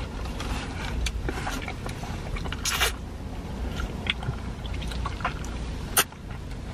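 Quiet chewing and wet mouth clicks of people eating jaboticaba fruit, over a steady low rumble of the car. There is a brief louder noise about three seconds in and a sharp click near six seconds.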